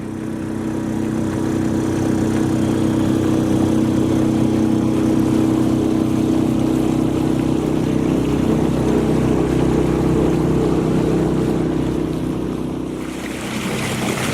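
Small boat's outboard motor running under way as a steady drone; it picks up speed at the start and throttles back near the end, where the rush of wind and water grows louder.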